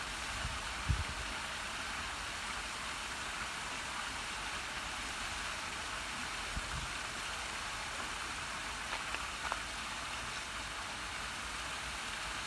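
Heavy rain falling: a steady, even hiss, with a light thump about a second in.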